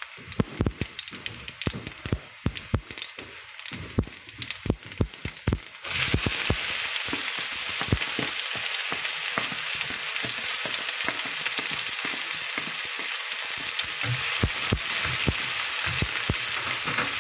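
Spices tempering in hot oil in a frying pan, with scattered sharp pops and spatula clicks. About six seconds in, chopped red onions go into the oil and a loud, steady sizzle starts at once, with the spatula clicking and scraping through it as the onions are stirred.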